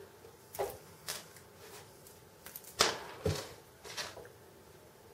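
Light clicks and knocks of a diecast model crane's lattice jib section and its small parts being handled, about six in all, the loudest about three seconds in.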